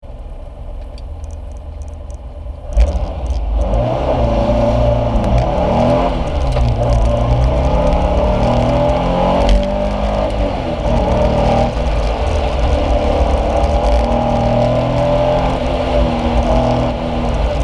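Porsche 914's engine heard from inside the cockpit, running quietly for the first few seconds, then launching sharply about three seconds in. It pulls hard under acceleration, its pitch rising and falling repeatedly as the throttle is worked.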